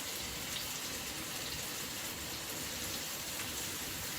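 Chicken in a pan of ginger, garlic and sauces sizzling steadily in hot oil.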